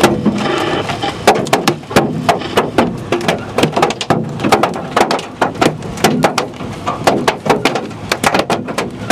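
Quarter-size hail pelting a car's roof and windshield, heard from inside the car: a rapid, irregular clatter of sharp hits over a steady rush of rain, growing denser near the end.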